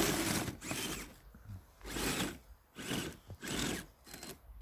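Electric motor of an RC crawler whirring in short bursts of throttle, about four bursts with short pauses between them.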